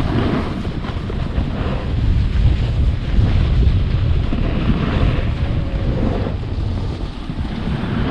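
Wind buffeting an action camera's microphone while a snowboard slides and carves over packed snow: a heavy rumble under a scraping hiss that rises and falls with each turn.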